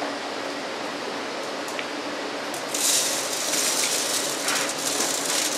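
A stack of brass testing sieves holding aggregate is set into a mechanical sieve shaker. Metal scraping and clatter start about three seconds in, over a steady background hiss.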